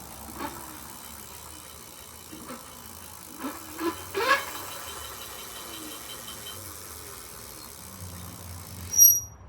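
Sur-Ron e-bike electric motor spinning under a freshly wired throttle: a steady whir with several short rising whines as the throttle is twisted, the strongest about four seconds in. A sharp, high-pitched click near the end is the loudest sound.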